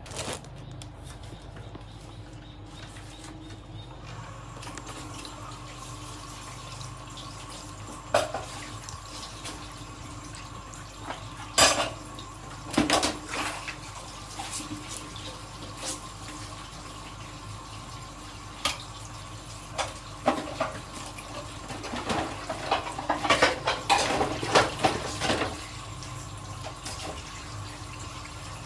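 Kitchen tap running steadily into a sink while dishes are washed by hand, with scattered clinks and knocks of dishes and cutlery and a busy run of them near the end.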